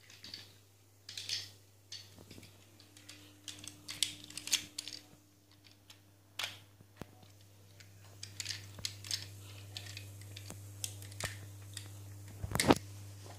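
Plastic clicks and snaps of a Tobot transforming car-robot toy as its parts are twisted and folded by hand, coming irregularly, with a louder knock near the end. A faint steady low hum runs underneath.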